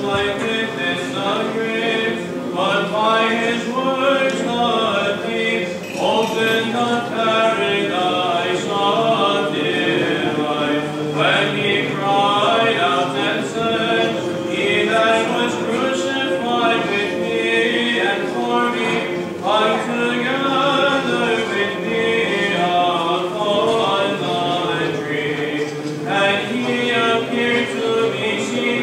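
Unaccompanied Orthodox liturgical chanting: voices sing a moving melody over a held drone note.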